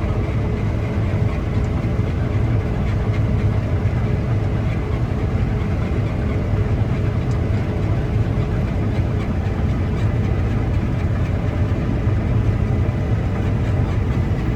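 Combine harvester running steadily: a loud, even low engine drone with a faint steady whine above it.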